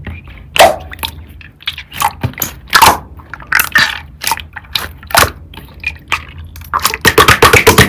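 Lime-green slime being squished and pressed by hand, making scattered sticky crackles and pops. Near the end it gives way to a fast run of clicks, about eight to ten a second.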